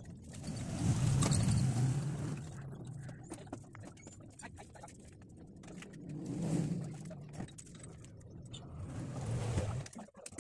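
Passing road traffic: engine and tyre noise swells up and fades away three times, loudest in the first couple of seconds.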